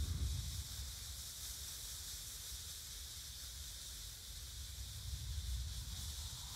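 Black Cat Chain Smoker smoke firework hissing steadily as it pours out yellow smoke, with a low rumble underneath.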